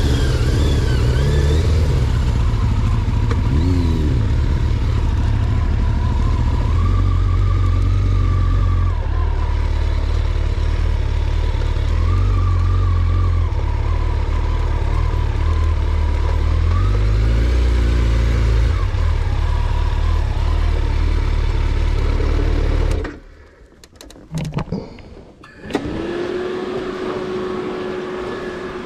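Car engine and road noise heard from inside the cabin while driving slowly, the engine note rising and falling. About 23 seconds in the noise cuts off abruptly, a few knocks follow, and then a quieter steady hum sets in.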